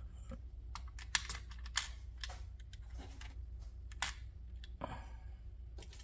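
Small metal items being handled and packed into a metal mints tin: scattered light clicks and taps, a few sharper ones among them.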